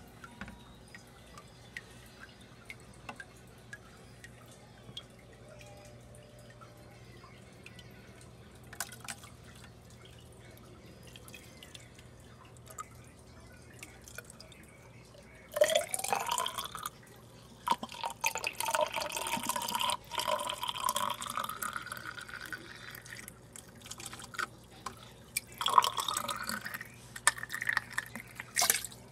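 Water from an aquarium gravel-vacuum siphon hose running into a plastic bucket. It starts with only scattered faint drips, then turns into a loud splashing flow about halfway through, with a pitch that climbs as the bucket fills. The flow pauses briefly, then comes back in a second burst near the end.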